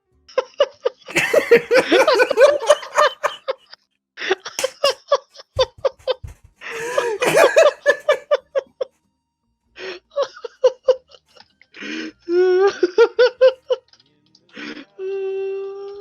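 Men laughing in repeated bursts, loud giggling and cackling with short pauses between fits. Near the end there is a single steady note held for about a second.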